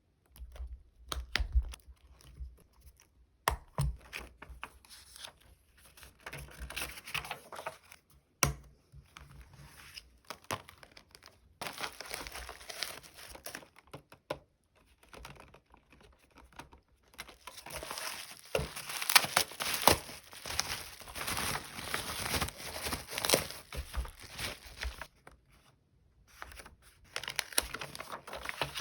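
Close-up crinkling and rustling of plastic vinyl sticker packaging, with stickers being peeled off their backing and sharp little clicks and snaps, busiest and loudest in the latter half.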